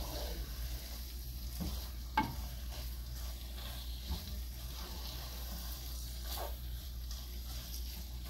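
Wooden spatula stirring and scraping chopped watermelon rind in a metal pot on a gas burner, with a steady sizzle of the food frying. Scattered knocks of the spatula against the pot, the sharpest about two seconds in.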